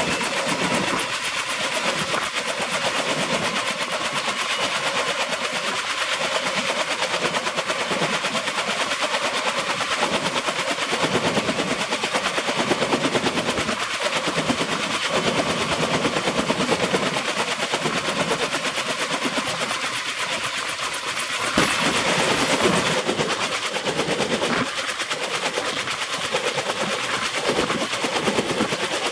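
Kaman K-MAX K-1200 synchropter running on the ground: its two intermeshing rotors beat a fast, steady chop over the whine of its Honeywell T53 turboshaft engine.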